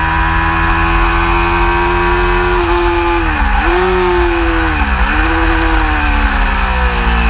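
Racing motorcycle engine at high revs, heard onboard, pulling down a straight with wind rushing over the microphone. The pitch climbs steadily, steps down with an upshift about two and a half seconds in, dips briefly twice, and starts to fall near the end.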